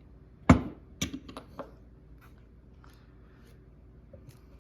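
10-ounce silver bars being handled: one sharp knock as a bar is set down about half a second in, then a few light clicks and ticks as the bars are moved.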